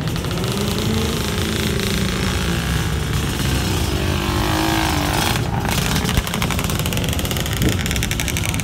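Motorcycle engine running, with the revs rising and falling as a sport bike rides off slowly.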